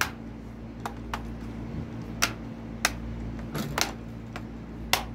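Irregular sharp clicks and taps, about eight in five seconds, from hands handling a laptop's plastic case and parts, over a steady low hum.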